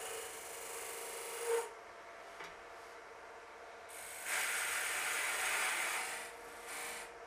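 Robert Sorby Turnmaster cutter scraping into a wood blank spinning on a lathe while forming a tenon, a shaving hiss that comes in two spells: the first ending about a second and a half in, the second from about four to six seconds. A steady hum of the running lathe lies under it.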